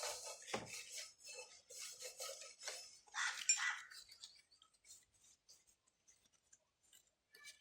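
Small metal brake parts and tools clinking and scraping while a motorcycle disc brake is being cleaned and handled: a busy run of light clinks for about four seconds, then a few scattered ticks.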